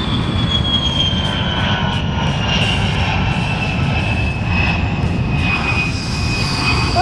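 Jet-aircraft engine sound effect: a steady rumble under a high whine that slowly falls in pitch.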